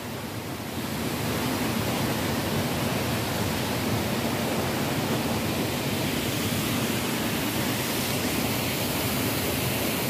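Steady rushing noise of stream water tumbling over rocks at a waterfall. It grows a little louder about a second in, then holds even.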